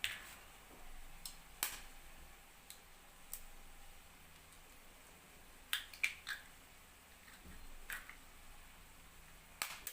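Eggs being cracked against the rim of a bowl: a handful of short, sharp taps at irregular intervals, with a cluster of three quick taps about six seconds in.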